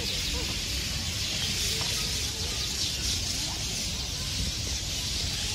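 A flock of birds chattering together as they settle to roost in a tree, a dense, steady wash of calls, over a low background rumble.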